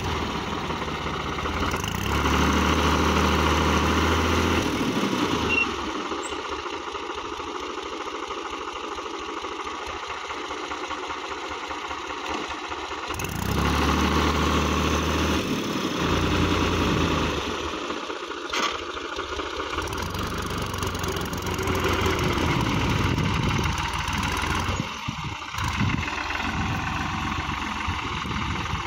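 New Holland TT55 tractor's diesel engine running under load, revving up in several louder spells as the tractor strains to pull itself free of deep paddy-field mud.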